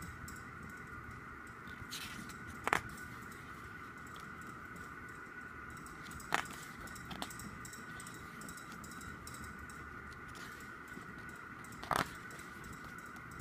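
Glossy pages of an album photo book being turned, each turn giving a short sharp snap of paper, four times a few seconds apart, over a steady faint high whine.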